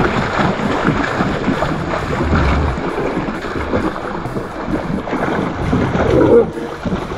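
Wind buffeting the microphone, a steady rough rumble, over splashing water.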